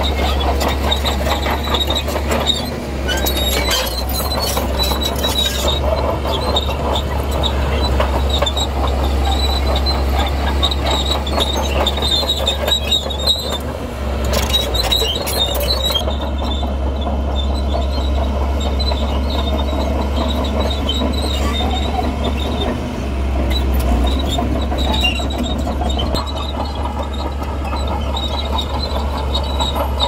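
Steel crawler tracks of a heavy tracked machine squealing and clanking as it works, over a steady low diesel engine drone.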